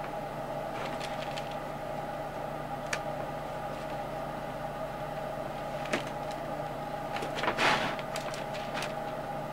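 Light clicks and taps of wooden model-kit parts being pressed together by hand, with a short scuffing rustle late on, over a steady background hum.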